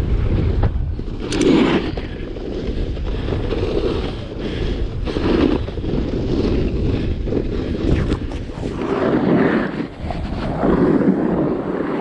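Lib Tech BRD snowboard sliding over snow along a cat track, with wind buffeting the microphone; the sliding noise swells and fades every second or two.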